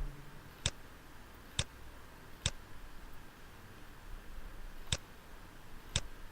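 Computer mouse button clicking: three sharp single clicks about a second apart, then two more near the end.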